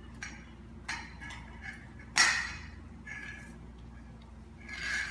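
Stainless steel dog bowl clinking on a tile floor while a dog eats from it: a few light clicks, then about two seconds in one loud ringing metallic clank. A short scrape follows near the end.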